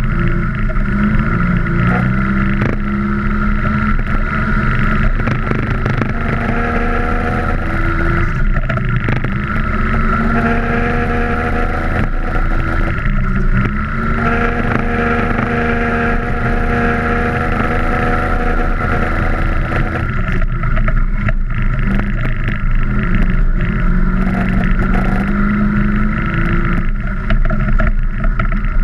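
Vespa scooter engine running hard off-road, its pitch rising and falling again and again with throttle and gear changes, with frequent short knocks over rough ground.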